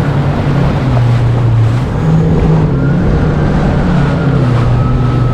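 Jet ski engine running on the sea, with water and wind noise. Its pitch rises about two seconds in, then settles back.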